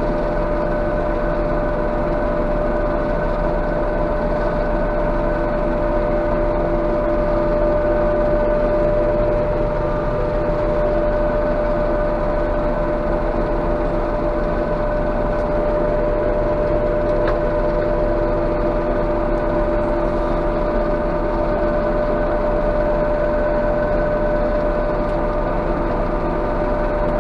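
Claas Jaguar 830 self-propelled forage harvester heard from inside its cab, engine and chopper running steadily under load while picking up a windrow of wilted grass, with a constant whine over the engine noise.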